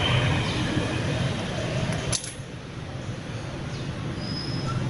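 Background street noise with one sharp metallic clink about two seconds in.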